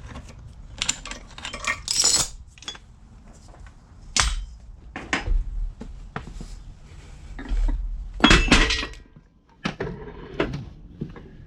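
Metal-on-metal clinks and clanks from handling the jack and parts on a cast-iron engine block: a string of sharp knocks, loudest in a cluster about eight seconds in.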